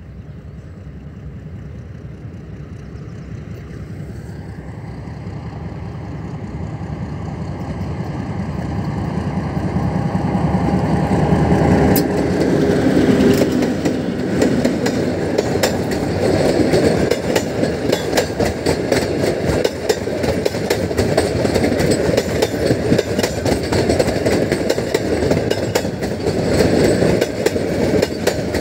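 Indian Railways passenger train hauled by a diesel locomotive, approaching and passing close by. The running grows steadily louder over the first ten seconds or so, then the locomotive's wheels and the coaches' bogies roll past in a steady loud clatter, full of sharp clicks of steel wheels on the rail.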